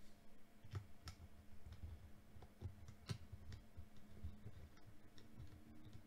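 Faint scattered clicks and light metallic taps of a thin metal SSD shield plate being handled and set into place over the second M.2 slot inside a Lenovo Legion 5 laptop, with a few sharper clicks about a second in and again about three seconds in.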